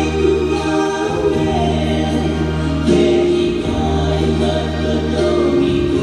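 A choir singing a hymn in sustained chords over a deep low line, moving to a new chord about three seconds in.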